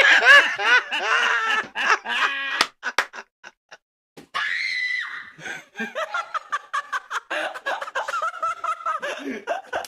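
People screaming in fright, mixed with laughter. A run of sharp clicks or knocks comes about three seconds in, and a high held shriek follows shortly after.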